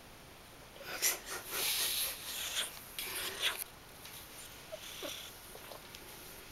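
Chinchilla Silver Persian cat sniffing and snuffling right at the microphone: a run of breathy puffs with a few clicks for about three seconds, then only faint sounds.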